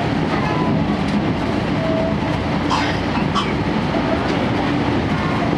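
Running noise inside a 12-series passenger coach in motion: steady wheel-on-rail rumble with a few clicks from rail joints around the middle, over the steady drone of the coach's diesel generator engine.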